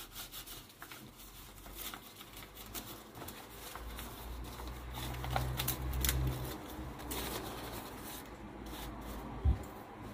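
Large ebieba wrapping leaves rustling and crackling as they are handled and folded by hand into a cone, a run of small crackles, with a low rumble about halfway through and a single knock near the end.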